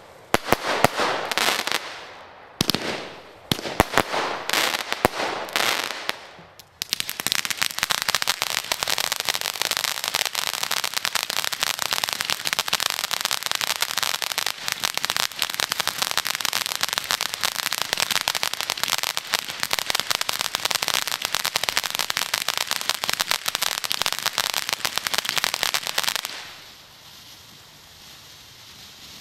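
Consumer fireworks going off. First come several separate crackling bursts, then about twenty seconds of dense, continuous crackling as a ground effect throws white crackling sparks. Near the end it drops to the soft hiss of a spark fountain.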